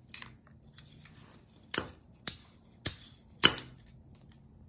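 Claw hammer striking the broken plastic housing of a VEX IQ Smart Motor on a concrete floor, knocking at it to free the motor inside. About six sharp knocks at uneven intervals, three of them much louder than the rest.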